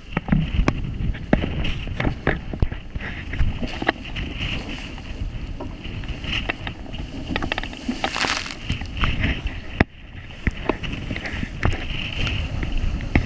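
Wind buffeting the microphone and water rushing along the hull of a Farrier 9AX trimaran sailing fast, with many short knocks of water and spray hitting the boat. A longer hiss of spray about eight seconds in, and one sharp knock just before ten seconds.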